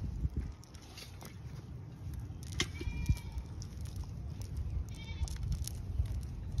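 A goat bleating twice, briefly, about three seconds in and again about five seconds in, over a steady low rumble.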